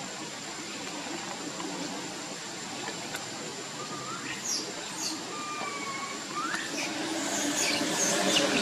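Steady outdoor hiss with a thin high steady tone, and a few short high chirps and whistled calls, some sweeping down and some rising, about halfway through and more often near the end.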